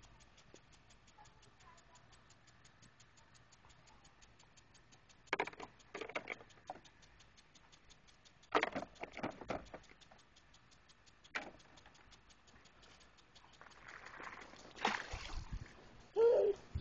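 Lawn sprinkler ticking faintly and steadily, several ticks a second, with a few louder bumps and rustles scattered through.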